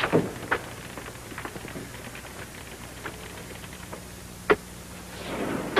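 A few scattered faint knocks and clicks over the steady low hum of an old film soundtrack, with one sharper click about four and a half seconds in and a brief louder swell of noise near the end.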